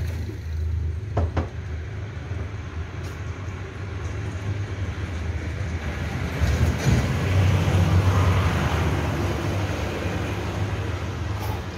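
Road traffic running steadily, with a vehicle going by louder about halfway through. A short knock about a second in.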